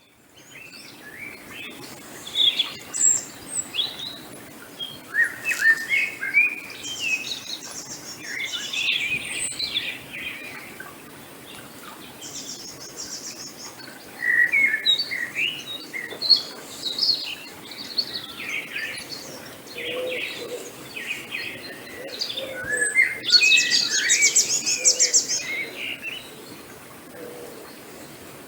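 Several songbirds chirping and trilling, with short calls overlapping and some fast buzzy trills, over a faint steady outdoor background hiss.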